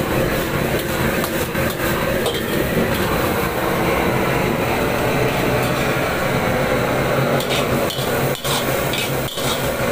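Stir-frying in a wok: a metal spatula scraping and clanking against the wok as pork-shred red-flour scraped noodles are tossed, over the steady noise of a high-flame gas wok burner. Sharper knocks stand out near the end.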